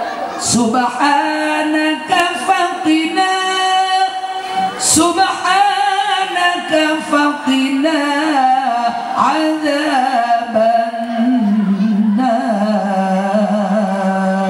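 A woman singing solo into a microphone: a slow, melismatic melody with long held and bending notes, ending on a long steady note.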